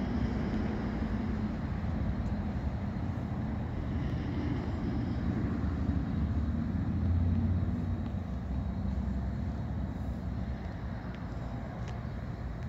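Steady low rumble of motor-vehicle noise, swelling slightly about seven seconds in.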